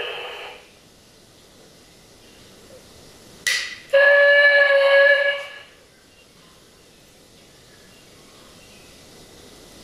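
Steam locomotive whistle sounding once, a steady pitched blast of about a second and a half, just after a short sharp hiss. Around it only a faint steady hiss, after background music fades out at the start.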